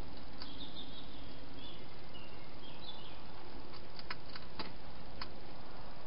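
Wild hedgehog eating from a bowl inside a plastic feeding box: scattered sharp clicks and crunches, a run of them in the second half, over a steady hiss. Faint high chirps in the first half.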